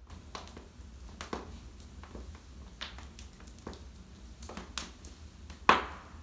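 Wood fire crackling in a fireplace: irregular snaps and pops, the loudest a sharp pop near the end, over a low steady rumble.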